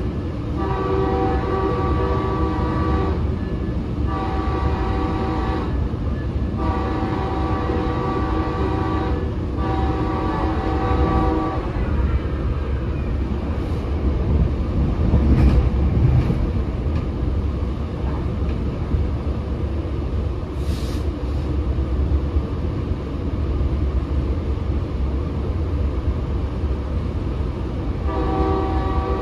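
Locomotive horn sounding a chord of several tones in four blasts over the first eleven seconds and again near the end. Under it is the steady low rumble of the moving Metrolink commuter train, heard from on board.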